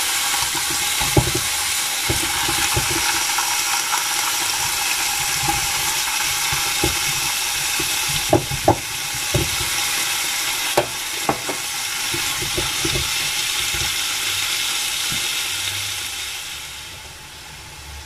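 Lamb rib chops sizzling in a hot iron frying pan: a steady, dense hiss of fat spitting. It is broken by a few sharp clicks and knocks midway as more pieces go in, and it dies down somewhat near the end.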